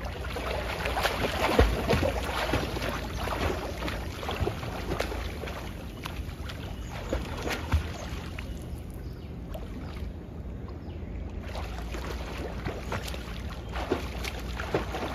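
Pool water splashing as a swimmer swims front crawl away, arms and kicks churning the surface. It is loudest in the first couple of seconds, then quieter as the swimmer moves off, with a few sharper splashes near the end.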